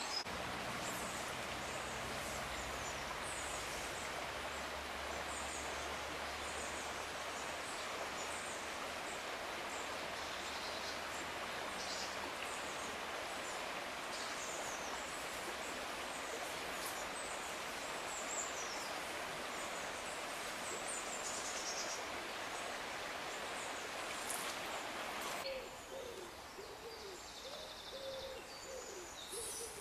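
Steady rush of a small stream's flowing water, with songbirds chirping over it. About 25 seconds in, the water noise drops away and low, repeated hooting bird calls are heard.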